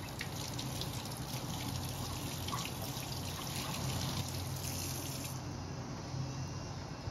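Kitchen tap running onto hands rubbing a zucchini under the stream, water splashing into the sink. The splashing thins out about five seconds in.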